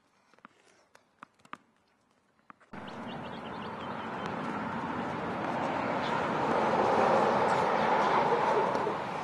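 A few sharp knocks of a tennis ball off a racket and the court. About three seconds in, a loud, even rushing noise starts abruptly, swells and then eases a little near the end.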